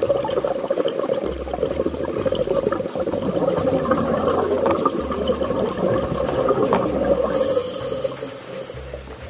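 Scuba exhaust bubbles gurgling and crackling with a rush of water, heard underwater through a waterproof camera housing. The bubbling is strongest in the middle and fades near the end.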